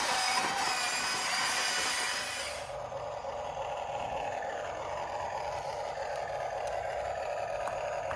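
RC excavator's small electric motor and hydraulic pump whirring steadily. A loud high hiss with whine cuts off about three seconds in, leaving a lower steady whine with a few falling tones.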